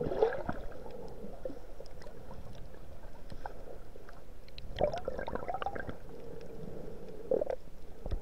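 Underwater sound through an action camera's waterproof housing in shallow sea water: a muffled steady wash with a faint hum, scattered faint clicks, and a few brief muffled gurgles near the start, about five seconds in and near the end.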